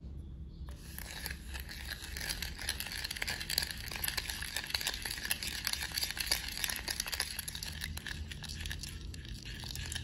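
Wooden spoon stirring a thin, wet sauce in a glass bowl, a continuous scraping swish with fine rapid clicks of the spoon against the glass, starting about a second in.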